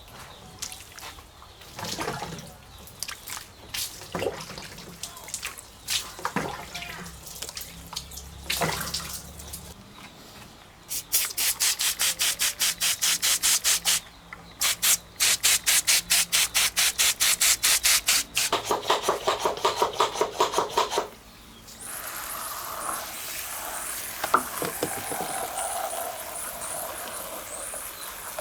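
Hand-scale cleaning of a diecast model car: scattered rubbing and knocking, then two runs of rapid even spray bursts, about five a second. A steady hiss of spray follows from about two-thirds of the way in.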